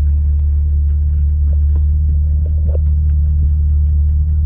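Jeep Cherokee engine idling, a steady low rumble heard inside the closed cabin, with a few light clicks over it.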